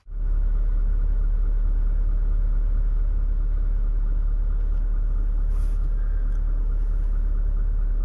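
Ute engine idling: a steady low hum.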